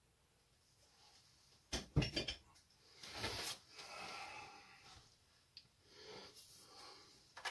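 A quick cluster of metallic clinks about two seconds in, as steel woodturning tools knock against each other and the lathe's metal bed while being handled, followed by softer rustling and shuffling.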